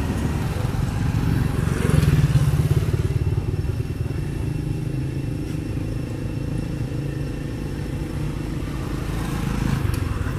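A motor vehicle engine running with a steady low rumble, loudest about two seconds in.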